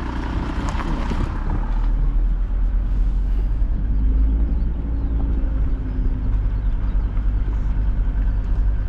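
Vehicle engine running steadily with a deep, low rumble, getting a little louder about two seconds in.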